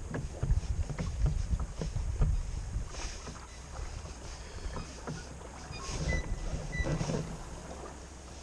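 Water lapping and knocking against a fishing kayak's hull, with wind rumbling on the microphone in gusts and scattered small knocks and splashes.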